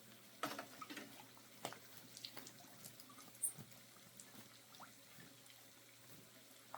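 Faint, scattered small water splashes and drips, a few light ticks among them.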